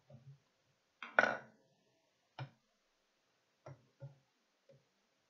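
Screwdrivers being handled and picked out: a handful of separate sharp knocks and clicks, the loudest a double knock about a second in.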